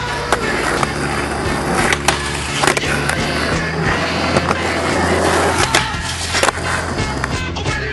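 Skateboard rolling on concrete, with several sharp clacks of the board popping and landing, and its trucks grinding along a metal flat rail. Background music plays underneath.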